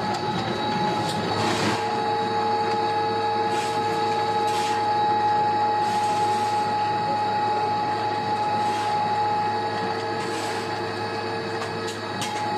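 Wood pellet mill running under load: a steady mechanical hum with a constant whine, broken by short hissing bursts every second or two.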